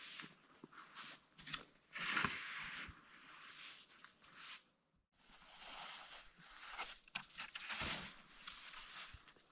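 Crunching and scraping of packed snow in irregular bursts as a snow shovel digs. The sound cuts out briefly about halfway through.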